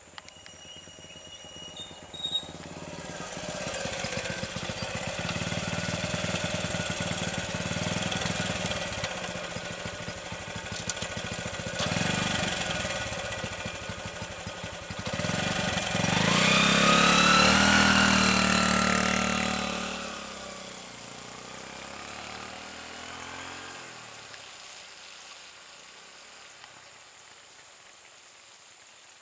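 Motor vehicle engines running close by. About halfway through one grows loud, with its pitch sliding as it passes or revs, then it fades away, leaving only a quiet background near the end.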